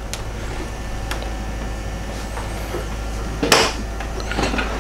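Wooden sideboard drawers and cabinet doors being opened by hand: a few light clicks, then a sharper knock about three and a half seconds in and a couple of smaller knocks near the end, over a steady low hum.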